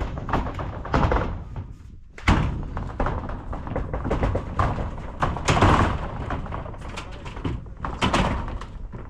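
Irregular thuds and knocks of building work, a dozen or so sudden strikes over a steady low rumble.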